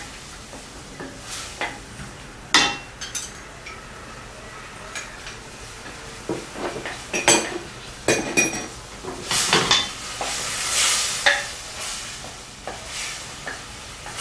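Wooden spatula stirring and scraping around a stainless-steel pan in irregular strokes, through a simmering garlic butter sauce being thickened with cornstarch slurry, which sizzles underneath. The scraping is busiest in the second half.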